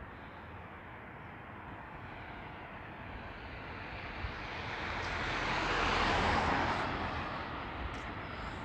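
A vehicle passes by: its noise swells to a peak about six seconds in, then fades, over a steady outdoor background.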